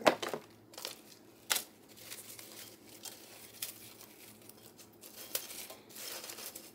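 Hands breaking up and pressing dry freeze-dried chili chunks down into a pot: scattered faint crackles and crunches. A foil pouch crinkles as it is set down at the start.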